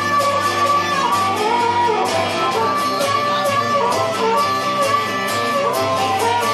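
Live acoustic guitar strummed in a steady rhythm, with a harmonica playing a melody of held and bending notes over it.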